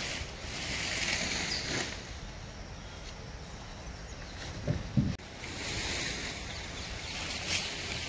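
Outdoor noise: a hiss that swells and fades twice, with two short low thumps close together about five seconds in.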